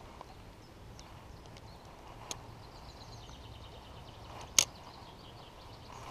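A spinning reel during a cast: a faint click a little after two seconds, then one sharp, loud click about four and a half seconds in, typical of the reel's bail snapping shut. A steady rush of river water runs underneath.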